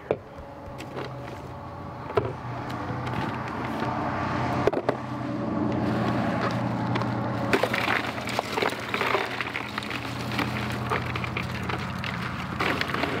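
A bag of ice torn open and emptied into a plastic cooler: plastic crinkling and ice cubes clattering, with many small clicks and crackles that grow busier in the second half, over a steady low hum.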